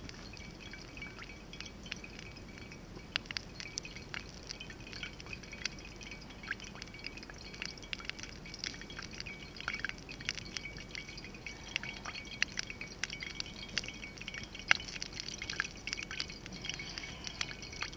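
Wood campfire crackling, with many sharp, irregular pops over a faint steady hiss.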